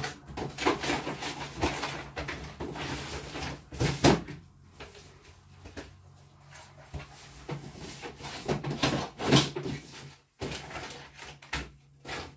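Clattering as things are rummaged through in a cupboard: irregular knocks, bumps and rustles, with the sharpest knocks about four seconds in and again after nine seconds.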